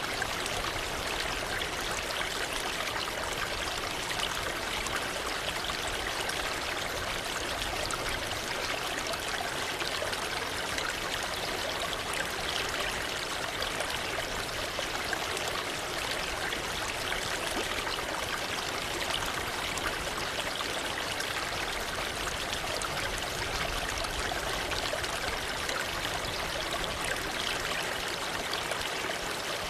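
Waterfall: water falling and splashing in a steady, even rush with no changes.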